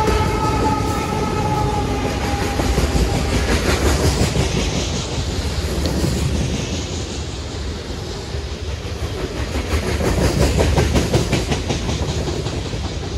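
CSX coal train's hopper cars rolling past fast and close, a steady rumble and rattle with rapid wheel clicks over the rail joints. A high whine from the mid-train diesel locomotive that has just gone by fades away in the first couple of seconds.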